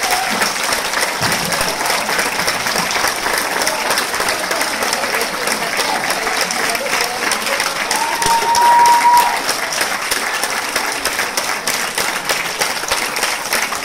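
Audience applauding steadily, with crowd voices mixed in. About eight seconds in, a single held high note, like a whistle, rises above the clapping for just over a second.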